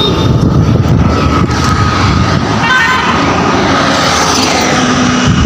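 Steady wind rumble on a phone's microphone while riding a bicycle along a road, mixed with road traffic noise.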